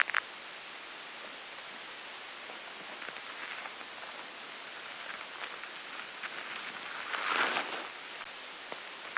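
Steady hiss with faint scattered rustles, a few quick clicks at the start and end, and a louder rustling swell about seven seconds in.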